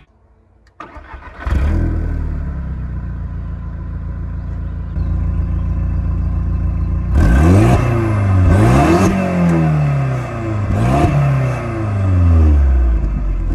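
Audi TT 8N 1.8T quattro's turbocharged four-cylinder engine, breathing through a 3-inch downpipe exhaust, comes in about a second and a half in and idles steadily. About halfway through it is revved up and let back down three times, then settles back toward idle.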